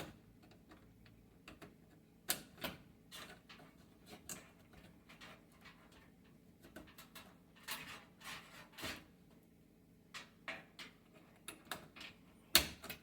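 Irregular plastic clicks and small knocks of wire connectors and control-panel parts being handled and snapped back into place, with the sharpest click near the end.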